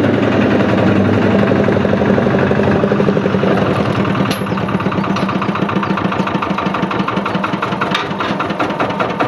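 Old site dumper's engine running with a rapid, even chug as the dumper drives up, easing to a steady idle about four seconds in.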